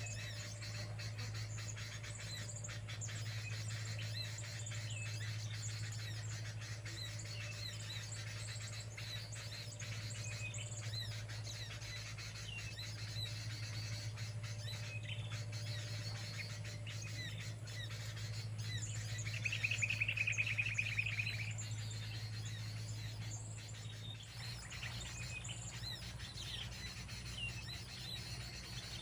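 Small birds chirping and calling, with a louder rapid trill lasting about two seconds about two-thirds of the way through. A steady low hum runs underneath and stops about 24 seconds in.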